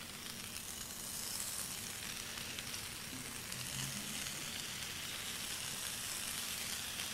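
Slices of loin bacon sizzling steadily on a hot ridged grill pan as more slices are laid down, the sizzle getting a little fuller about a second in.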